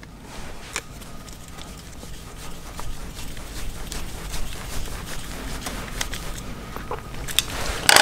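Hand screwdriver driving a small Phillips screw into a car door handle's lock assembly, with light scrapes and scattered clicks of small metal parts being handled, and a sharper click near the end.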